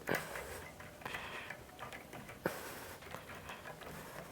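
Stiff plastic-insulated copper speaker-cable conductors being handled and pulled apart by hand: scattered rustling with small clicks and taps, two sharper clicks near the start and about halfway through.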